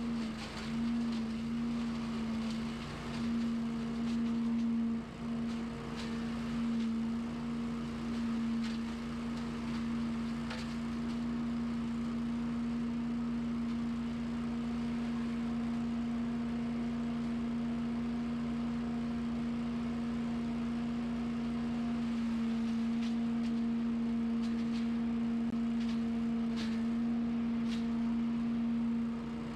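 Small gas engine of lawn equipment running steadily at high speed, giving a constant hum that holds one pitch, with a slight change in tone about three quarters of the way through.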